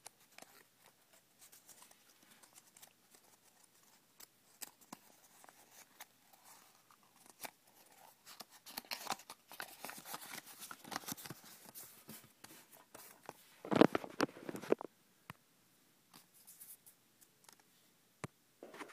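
A small folded paper note being taken out and unfolded by hand: crinkling and rustling paper with little clicks of handling, busier in the second half and loudest in a burst of about a second some fourteen seconds in.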